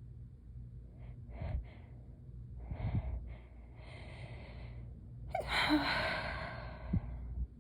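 A person's gasping, hitching breaths during a sneezing fit: a few short gasps, a longer in-breath, then a loud breathy burst about five and a half seconds in, the loudest sound.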